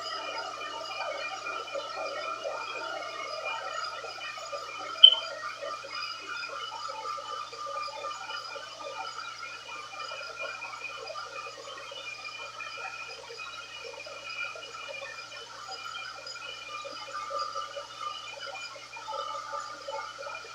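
Turbo Styler handheld blow dryer running steadily: a rush of air with a steady motor whine. A short, high-pitched blip sounds about five seconds in.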